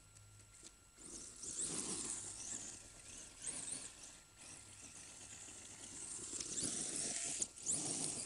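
Brushless electric RC off-road car driving over rough ground: the high motor whine rises and falls in bursts of throttle, over a rough noise of tyres on dirt and gravel. It starts about a second in and is loudest near the end.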